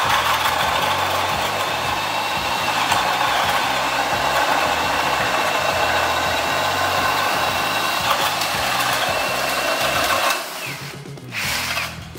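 Einhell 18 V brushless cordless drill in low gear driving a bent hole saw, missing one carbide tooth, through 15 mm plywood. The motor whine and cutting noise are steady, then stop about ten seconds in as the saw breaks through.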